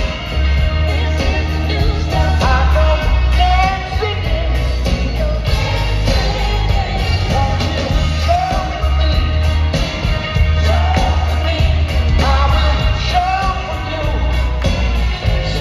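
Live rock band playing with a male lead singer, over a heavy, steady bass line.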